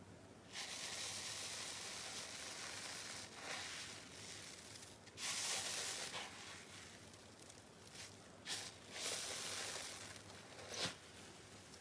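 Slime being squeezed and stretched by hand close to the microphone, in several noisy squelching stretches of a second or more with shorter bursts between.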